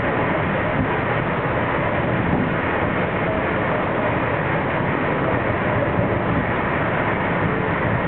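Metro-North M3 electric multiple-unit train running at speed: a steady rush of wheels on rail and moving air.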